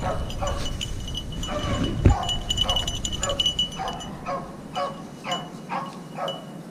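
Beagles baying on a rabbit's trail, a steady run of short repeated yelping calls.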